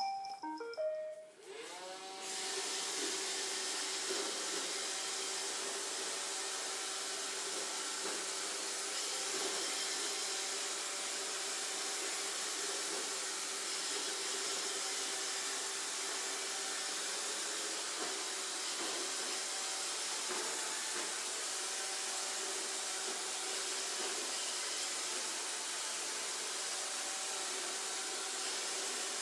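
iRobot Roomba robot vacuum starting a cleaning run: a short tune of stepped beeps, then its motors spinning up with a rising whine and running at a steady whir with a hiss.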